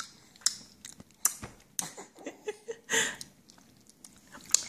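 A toddler eating finger food: small scattered lip smacks, mouth clicks and finger sucking, with a short vocal sound about three seconds in.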